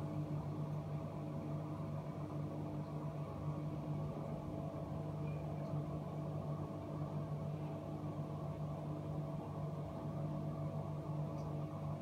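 Steady machine hum with a few held low tones, unchanging throughout.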